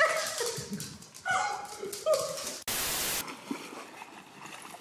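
A dog making three short whining calls in the first two seconds or so, then a half-second burst of static-like hiss.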